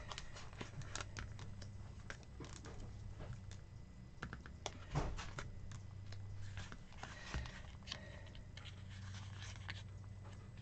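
Pages of a sticker book being leafed through by hand: a run of soft paper rustles and small clicks, one louder than the rest about halfway, over a low steady hum.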